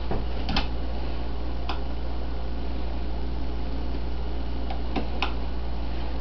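A handful of light metallic clicks as an Allen key and Allen-head bolts are handled against a metal grab bar being fitted, a few near the start and a quick run of three near the end, over a steady low hum and hiss.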